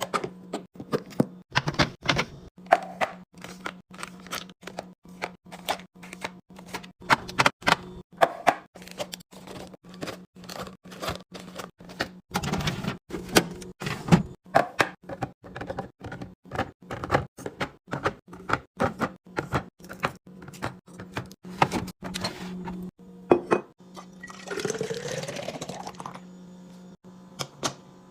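Plastic containers, bottles and lids clicking and knocking in quick, irregular succession as food and drinks are packed into a fridge, over a steady low hum. About 24 seconds in, liquid is poured into a container for about two seconds, its pitch rising as the container fills.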